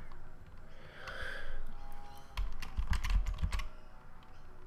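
Arrow keys on a computer keyboard tapped repeatedly, short clicks in quick runs, busiest about halfway through.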